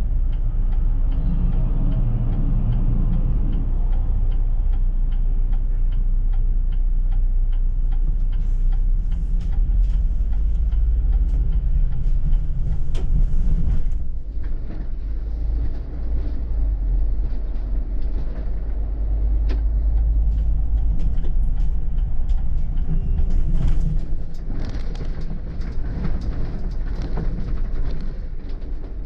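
City bus running during a ride, a steady low engine and road rumble. About halfway through the sound drops a little and a higher hiss joins it.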